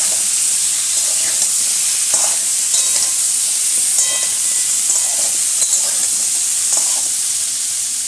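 Pointed gourd (potol) and potato pieces sizzling steadily in hot oil in a metal kadai, with a spatula scraping and stirring them several times.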